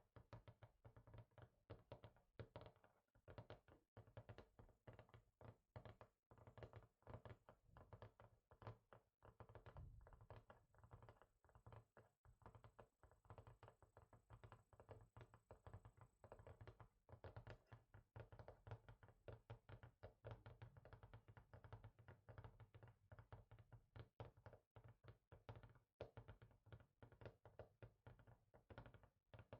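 Quiet, rapid fingertip tapping on a surface, a dense run of soft knocks several a second.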